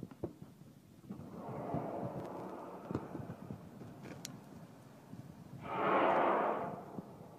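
Breathing close to the microphone: a long exhale in the first half and a louder one near the end, with a few faint handling clicks.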